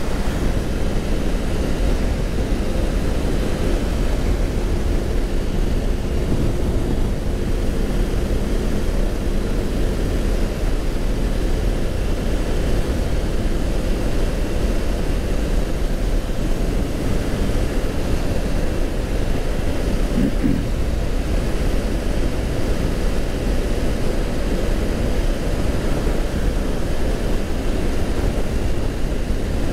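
Motorcycle riding at speed: a steady rush of wind over the microphone with the engine droning underneath.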